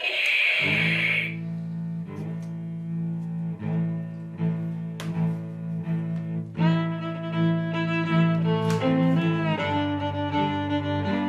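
Background orchestral music: low bowed strings hold long notes, and a higher melody line enters about six and a half seconds in. It opens with a short hiss lasting about a second.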